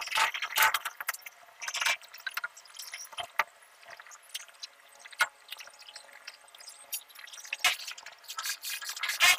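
Scattered light clicks, knocks and scrapes of orange PVC sanitary pipe fittings being handled and pushed together overhead, with a few louder scuffs in the first two seconds.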